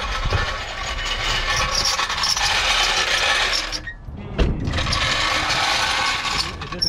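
Rapid, continuous ratcheting clicks from a tool during a car tire change. They break off about four seconds in with a single heavy thump, then go on again until just before the end.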